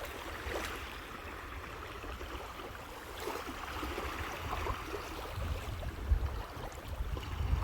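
Small lake waves washing against the shore, a steady rushing wash, with an uneven low rumble that grows louder in the second half.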